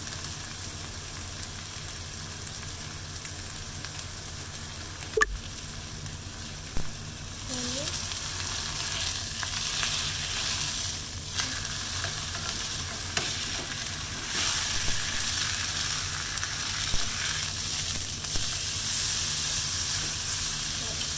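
Beef steak sizzling in a hot frying pan, the sizzle growing louder partway through as the steak is turned over with tongs. A sharp click about five seconds in, with a few smaller knocks later.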